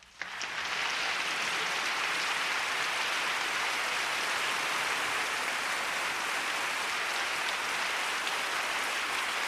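Steady rain falling, an even hiss of many drops that swells up within the first second and then holds level.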